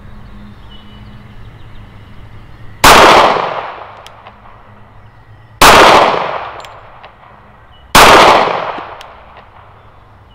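Three pistol shots from a Glock 30 SF .45 ACP, a little over two seconds apart, each a sharp crack that trails off over about a second.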